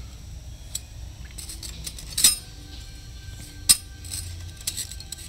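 Light metallic clicks and clinks of a steel feeler gauge blade knocking against the camshaft and cylinder head while an Aprilia RSV4's exhaust valve clearance is being checked, with two sharper clinks about two and three and a half seconds in.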